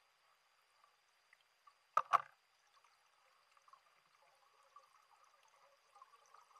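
Faint underwater bubbling and trickling of water, muffled as heard through an underwater camera housing. Two sharp clicks come close together about two seconds in.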